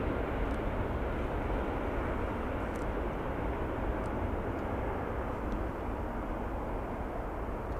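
Airbus A380-861 climbing out after takeoff, its four Engine Alliance GP7200 turbofans at takeoff thrust: a deep, steady rumble that slowly fades as the airliner pulls away.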